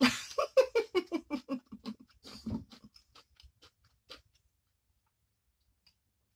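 A woman laughing: a run of short 'ha' bursts that fade out over about three seconds. A few faint clicks follow, then near silence.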